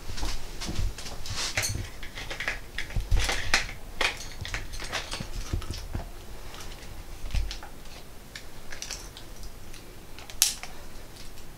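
Handling noise of a DSLR camera being fitted onto a tripod and adjusted: a run of irregular clicks, light knocks and a few low thumps, with one sharp click, the loudest, near the end.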